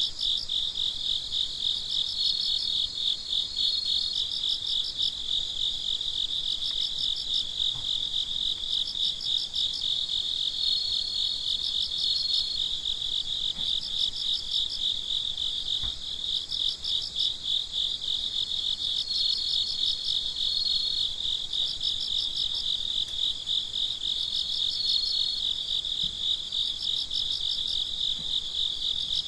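Night chorus of crickets: a steady high trill that never stops. Over it, a higher pulsed chirping comes in short bursts every two to three seconds.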